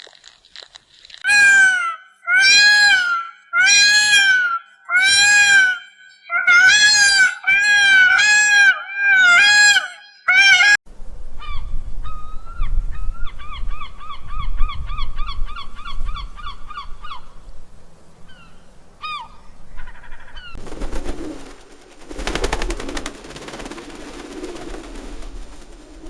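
An animal or bird gives about eight loud honking calls, roughly one a second, over the first ten seconds. A quieter, rapid chattering series of short notes follows, then a few seconds of rough noise near the end.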